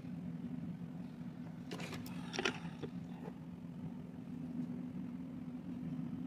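A steady low machine hum, with a short cluster of light clicks and scrapes about two seconds in and a couple of single ticks after, as nail tools are handled against the plastic practice hand's acrylic tips.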